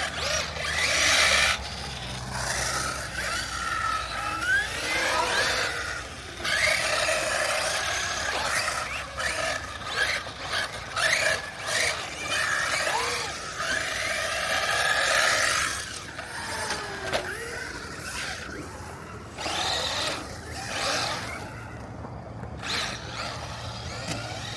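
Electric RC monster trucks driving hard. The motors whine in short glides that rise and fall with the throttle, and the tyres scrub and scrape in repeated bursts.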